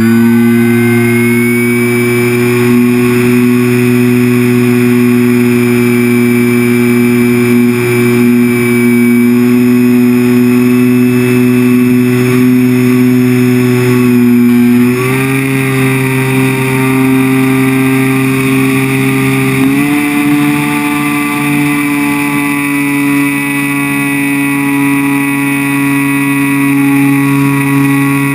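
Onboard sound of a ParkZone Extra 300 RC plane's electric motor and propeller in flight: a loud, steady drone. Its pitch steps up with throttle about halfway through and again a few seconds later. It is heard through a sealed GoPro waterproof housing, which muffles it.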